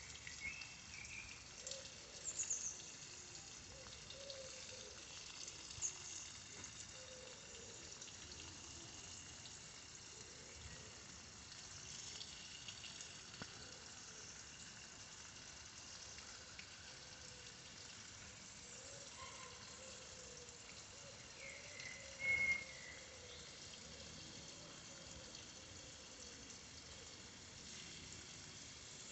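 Faint outdoor background hiss with a few short, high bird chirps. The loudest chirp comes about three-quarters of the way through.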